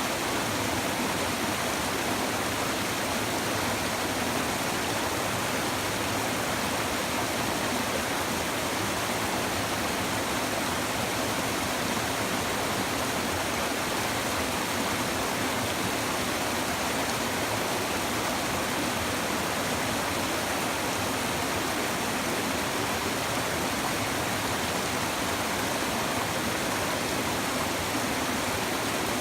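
Shallow river babbling over stones: a steady, even rush of flowing water.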